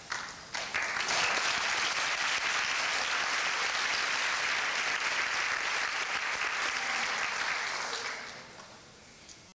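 Audience applauding: a few scattered claps swell into full applause about a second in, which holds steady and dies away near the end.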